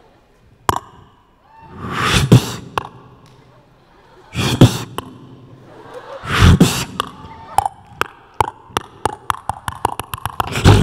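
Live human beatboxing through a handheld microphone: sharp mouth clicks and hits, three louder breathy swells, then a quickening run of rapid clicks in the last few seconds.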